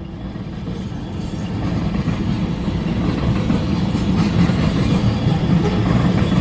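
Freight train rolling past: a steady rumble of steel wheels on rail with light clickety-clack, growing louder over the first few seconds. These are the ethanol tank cars following the locomotives.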